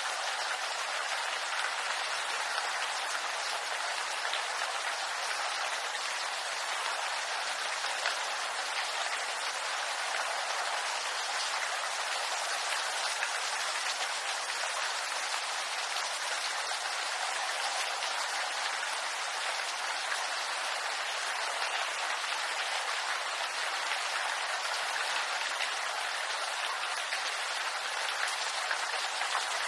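Steady rain falling on bamboo leaves: a dense, even patter of drops with no let-up.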